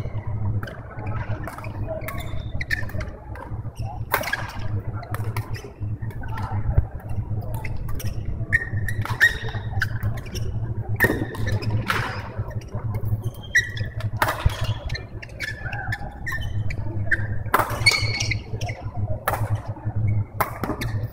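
Badminton rally: a string of sharp smacks of rackets striking the shuttlecock, with short squeaks of court shoes, over a steady low hum.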